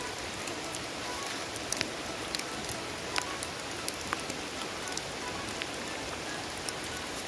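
Steady rain falling, with sharp drop hits ticking irregularly through it.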